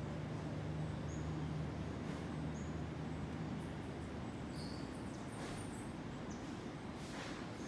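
Rainforest ambience: a steady wash of background noise with a few faint, short, high bird chirps. A low hum underneath fades out about halfway, and two brief hissy swells come near the end.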